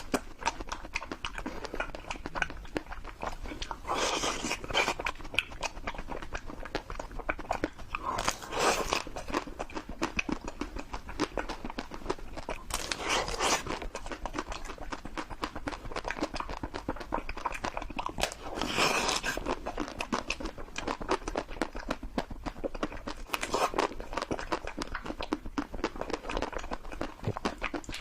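Close-miked eating of ice cream: a steady run of small wet mouth clicks and chewing, with a louder bite or slurp about every five seconds.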